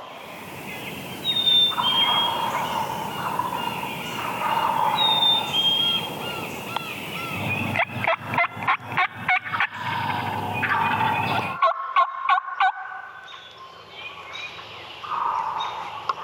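Wild turkey gobbling, a fast rattling call, about halfway through and again, more briefly, a few seconds later, with songbirds chirping.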